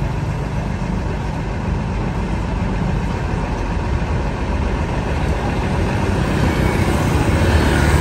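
Diesel engine of a Sugeng Rahayu intercity bus running at low revs as the bus pulls away slowly. It grows a little louder near the end.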